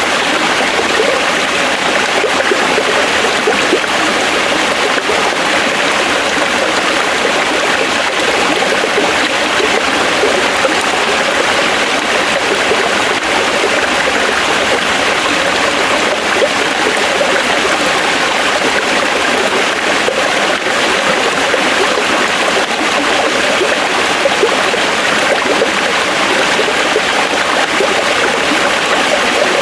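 Forest stream flowing steadily, water rushing and gurgling over rocks without a break.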